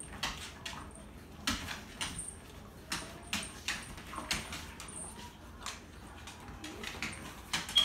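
Dog claws clicking and paws scuffling on a hardwood floor as an adult pit bull–type dog and a puppy play, in quick, irregular taps. One short, high squeak near the end.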